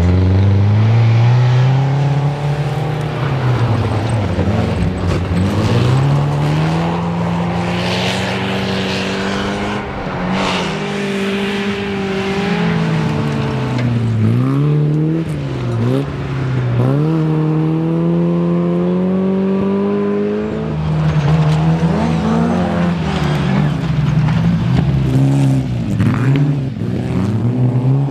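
Historic rally car engines at full throttle through a stage. The pitch climbs and then drops again and again as the cars accelerate, change gear and lift off.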